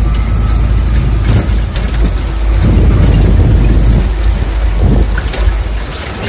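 Jeep driving slowly along a rough dirt track: a steady low rumble of engine and tyres on gravel, with a few brief knocks and rattles.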